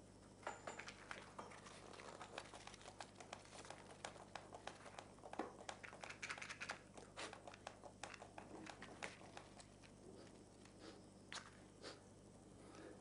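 Faint rustling, crinkling and many small irregular clicks of hands handling small objects on a tabletop, over a low steady hum.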